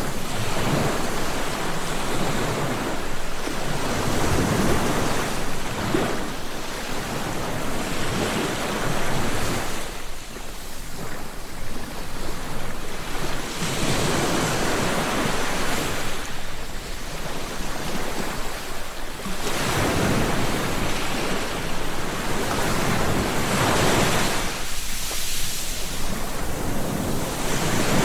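Ocean waves breaking and washing on the shore, in a continuous surf that swells and eases every few seconds, with wind on the microphone.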